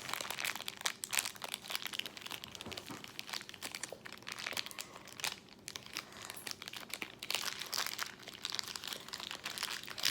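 Plastic packaging crinkling and crackling irregularly as it is handled and opened.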